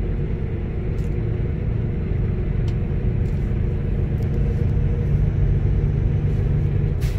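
Semi-truck's diesel engine heard from inside the cab, a steady low drone as the truck pulls slowly in heavy traffic, growing a little louder partway through.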